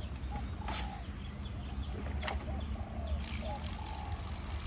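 Short animal calls repeating about twice a second over a steady low rumble, with two sharp clicks about one and two seconds in.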